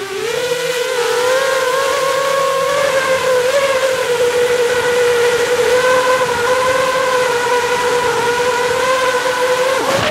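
FPV racing quadcopter's brushless motors and propellers whining in flight: a steady high hum whose pitch wavers slightly. Near the end the pitch dips and then starts to climb.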